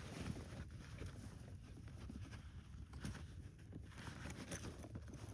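Faint rustling and light knocks of gear being handled and pulled out of a pack, over a low steady rumble.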